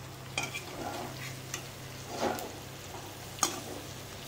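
A spatula stirring potatoes and cauliflower in a kadhai, with about five separate scrapes against the pan over a light sizzle of the frying vegetables.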